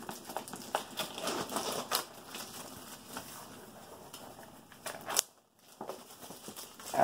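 Cardboard box and plastic packaging being handled and opened: rustling, crinkling and scraping with a few sharp clicks and knocks, and a brief gap of near silence just after five seconds.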